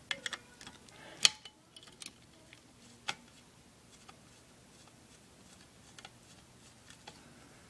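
Scattered clicks and light knocks from handling a laptop's small parts and a screwdriver during disassembly, the sharpest about a second in, with quiet room tone between.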